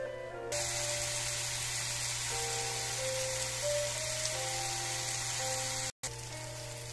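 Sliced saba bananas, onions and tomatoes frying in oil in a pan: a steady sizzle that starts about half a second in, under background music with a simple plucked melody. The sound cuts out for an instant near the end.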